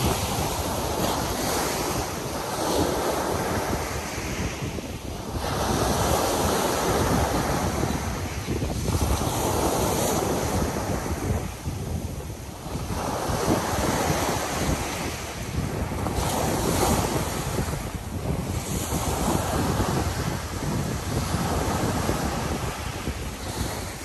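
Black Sea surf: small waves breaking and washing up a fine-pebble beach, swelling and ebbing about every three to four seconds, with wind buffeting the microphone.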